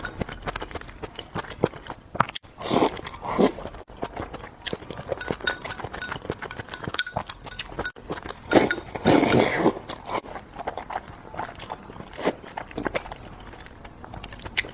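Close-miked chewing and crunching of food, likely green chilies: a steady run of small crunches and mouth clicks, with louder crunching bites about three seconds in and again around nine seconds.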